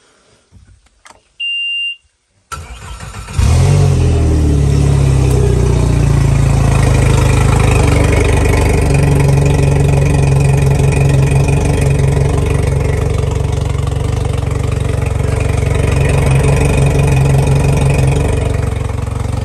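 Mercury Verado 150 outboard (supercharged four-stroke) being started: a short electronic beep from the helm about a second and a half in, the starter cranking for about a second, then the engine catches and runs steadily and loudly.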